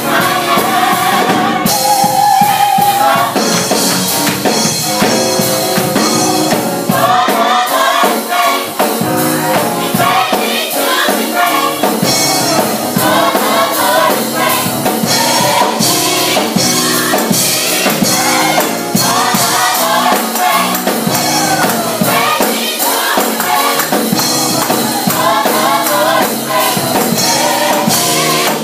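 Young adult gospel choir singing with band accompaniment and a steady beat of drums or tambourine.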